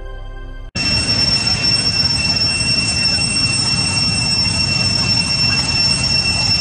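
Background music cuts off abruptly less than a second in, giving way to a steady high-pitched insect drone over an even outdoor hiss.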